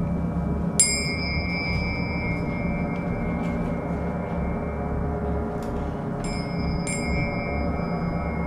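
Ambient live music: a sustained, shimmering gong-like drone. Over it a small high-pitched bell is struck about a second in and twice more near the end, each strike ringing out.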